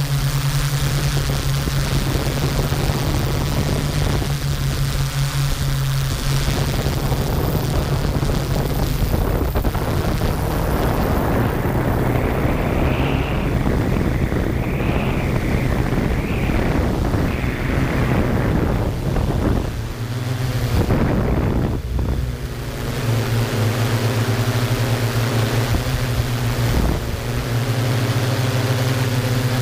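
Yuneec Q500 quadcopter's propellers and motors humming steadily, heard from the camera on the drone itself, over a rush of wind noise. The hum shifts in pitch about two-thirds of the way through as the motor speeds change.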